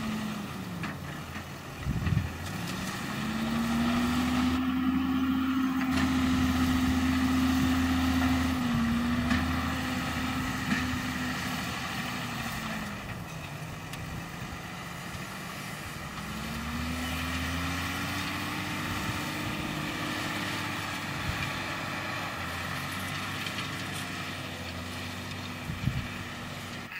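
John Deere 6150R tractor's six-cylinder diesel engine running under load, its revs dipping and picking back up twice. There is a sharp knock about two seconds in and another near the end.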